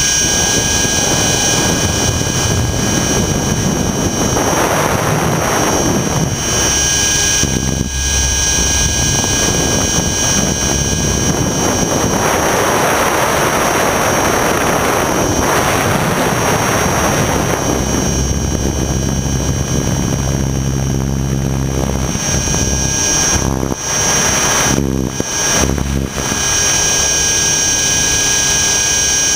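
Align T-Rex 600 ESP electric RC helicopter in flight, picked up by a GoPro mounted on its frame: a steady high whine from the motor and drivetrain over the rotor noise. Rushing air swells twice, in the first few seconds and again in the middle.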